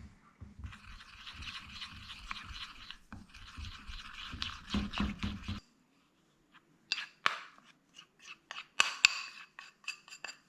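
Kitchen utensil scraping and stirring in a bowl for about five seconds, then a run of light, ringing clinks, a dozen or so over the last few seconds.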